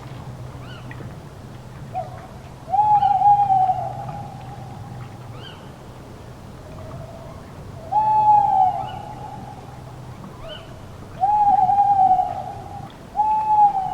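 Night-forest ambience: an owl hooting in long, drawn-out calls at one pitch, four of them, each trailing off in an echo, with short faint high chirps between them and a low steady hum underneath.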